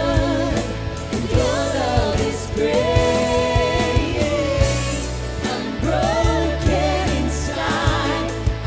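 Christian worship music: a voice sings a melody over a band with steady drum hits and bass.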